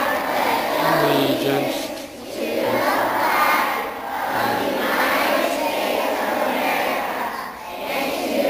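Many voices, children among them, reciting a pledge aloud together in unison, with a short break between phrases about two seconds in and again near the end.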